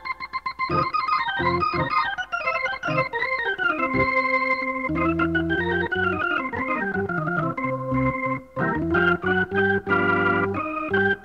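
Blues organ instrumental: an organ plays a moving melody of held and gliding notes, with lower sustained notes coming in about five seconds in.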